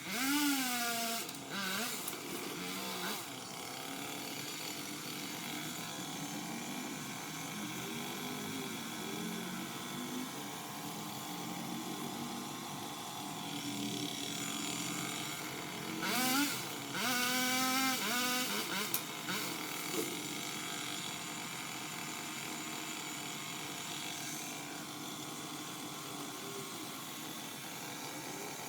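Power limb cutter (pole saw) motor revving up and winding down in two bursts, right at the start and again around sixteen to nineteen seconds in, over a steady mechanical hum.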